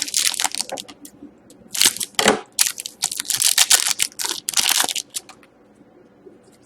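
Trading card pack wrapper being handled and crumpled, a crackly crinkling for about five seconds before it dies down to faint handling noise.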